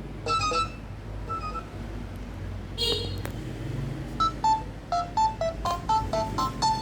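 Nokia ringtone played through a Nokia 3110 classic's small speaker, in short beeping notes. A few notes end one tune, a brief blip comes about three seconds in, and a new tune of quick, hopping notes starts about four seconds in.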